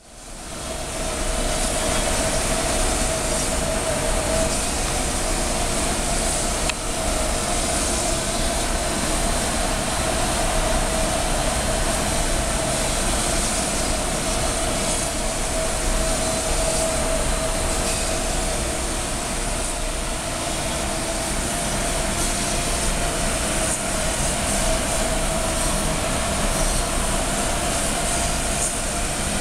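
CNC milling machine cutting heightfield relief into foam: the spindle runs with a steady whine and a constant cutting hiss, rising in over the first second and then holding level.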